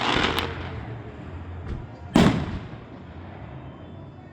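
Fireworks exploding: the fading tail of one blast in the first half second, then a second loud bang about two seconds in that dies away quickly.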